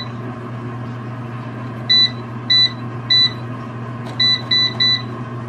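Ultrean air fryer oven's touch panel beeping six times as the cooking temperature is stepped up, three short beeps about half a second apart, then three quicker ones. Under them the fryer's fan runs with a steady hum.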